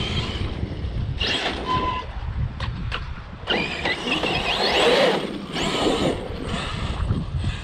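ARRMA Outcast electric RC truck accelerating in two bursts, its brushless motor and gears whining and rising in pitch with speed, the second burst longer.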